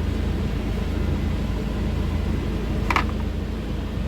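Steady low mechanical hum with a single short click about three seconds in.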